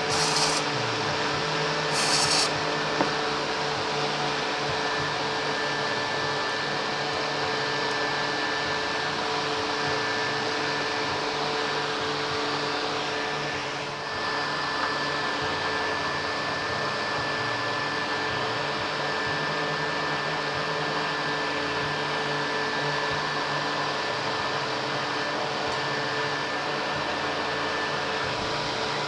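Steady whirring hum of a fan or similar small motor running, with two short sharp hisses in the first few seconds.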